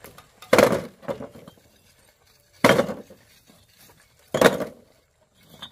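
Three hard clinking strikes about two seconds apart, in a steady rhythm of manual labour, like a metal hand tool striking stone or stony ground.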